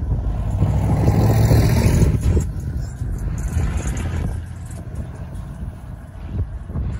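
Road traffic: cars driving past close by, swelling to the loudest about one to two seconds in and then fading.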